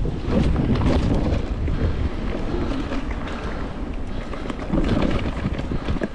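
Wind buffeting the microphone over the rumble and rattle of an electric mountain bike ridden fast along a trail, with many small clicks and knocks from the bike and tyres.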